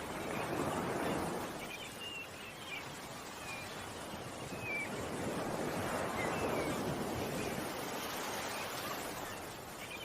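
Ocean waves washing ashore, swelling twice, with small birds chirping in short calls over them.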